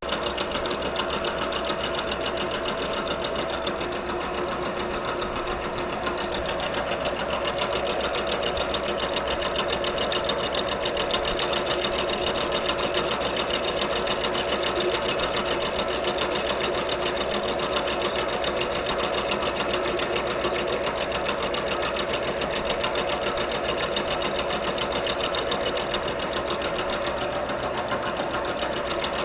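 Bridgeport milling machine running steadily, its spindle turning a workpiece against a fixed tool bit, with a fine mechanical clatter and steady whine. A higher hiss joins for about ten seconds in the middle.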